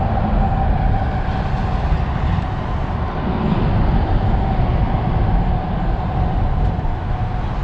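Boat motor running steadily: a low rumble with a constant whine above it.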